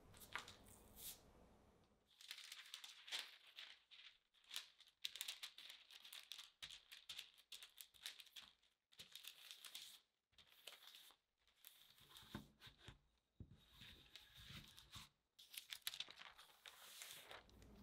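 Parchment paper crinkling and rustling in irregular strokes as a wooden rolling pin rolls cookie dough flat under the sheet.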